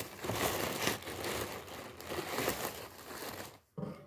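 Black wrapping paper crinkling and rustling as it is pulled apart by hand, stopping about three and a half seconds in, followed by a short soft knock.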